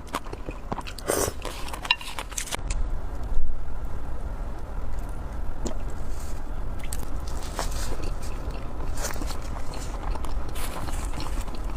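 Close-miked eating sounds: a person biting and chewing food, with irregular clicks and smacks of the mouth.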